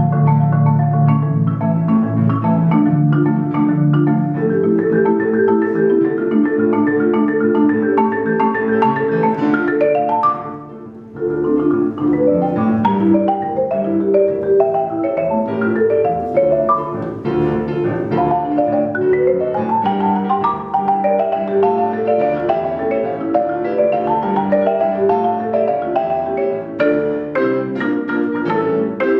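Concert marimba played with mallets: fast, dense runs of ringing wooden-bar notes, with a quick upward sweep and a brief lull about ten seconds in.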